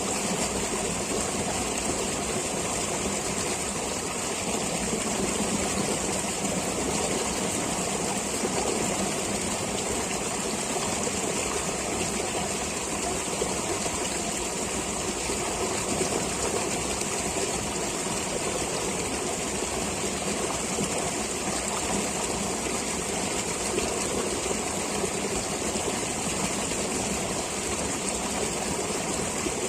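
A stream of flowing water rushing steadily and evenly, with a bright hiss in the upper range.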